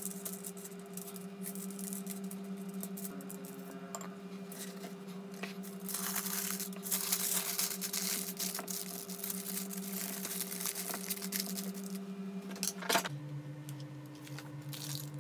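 Aluminium foil crinkling and rustling as it is folded into a parcel around a sandwich, loudest in the middle. Underneath is soft background music holding one low note that steps lower near the end.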